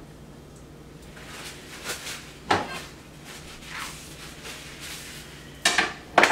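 Paper towel rustling as hands and a knife blade are wiped, with a knock about two and a half seconds in. Sharp clatters of kitchen utensils near the end.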